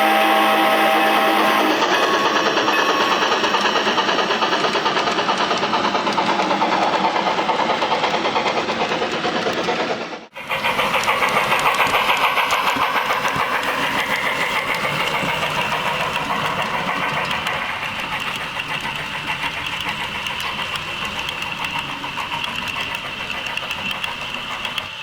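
Steam locomotive sound with a steady, rapid, even pulsing of exhaust chuffs. It breaks off abruptly about ten seconds in and resumes at once.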